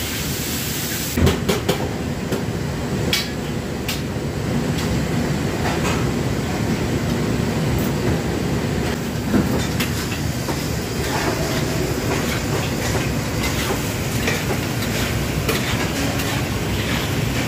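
Commercial wok range burner and kitchen extraction running with a steady rushing noise, with occasional clinks of a metal ladle against the wok.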